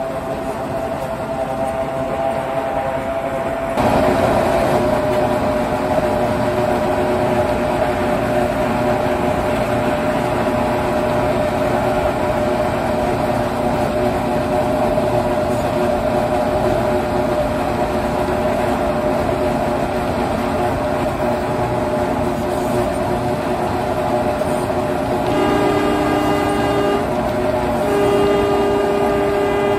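Small diesel locomotive running along the track, heard from on board: a steady engine drone that grows louder about four seconds in. Near the end come two horn blasts.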